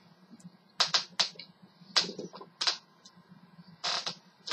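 A run of sharp, irregular clicks and snaps, about eight in four seconds, some in quick pairs, over a faint steady low hum.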